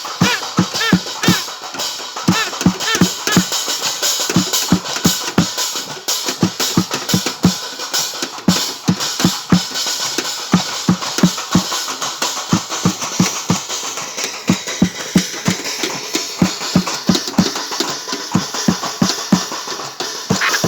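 Loud drum-driven music with a steady fast beat of about three strikes a second.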